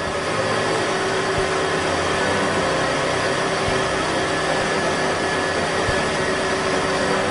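CNC milling machine's spindle running steadily with an end mill cutting a main journal on a model boxer-six crankshaft turned in a rotary fourth-axis chuck: a constant whir with a steady whine through it.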